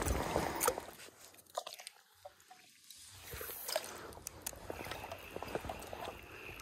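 Faint scattered clicks and rustling handling noise over the low wash of stream water, dropping to near silence for about two seconds after the first second.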